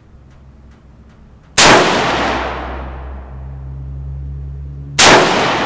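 Two shots from a Rock River Arms CAR-15 (AR-15) carbine, about three and a half seconds apart, each a sharp crack with a long echoing tail.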